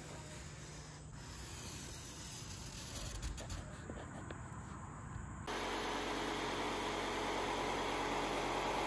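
Faint hiss with a few light scratches of a marker drawn along a ruler on foam board. About five and a half seconds in, a Black+Decker jigsaw starts suddenly and runs steadily, cutting through rigid XPS foam insulation board.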